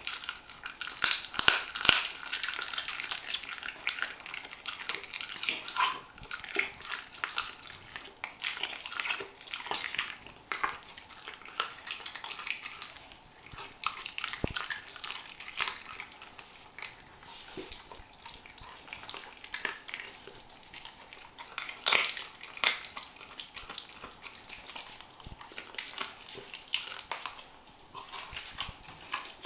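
Weimaraner puppy chewing a raw chicken wing held in a hand: irregular wet crunching and smacking, with a few louder crunches near the start and about two-thirds of the way through.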